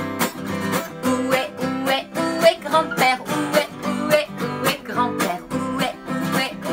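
Acoustic guitar strummed in a steady rhythm, several strokes a second, playing the chords of a simple children's song.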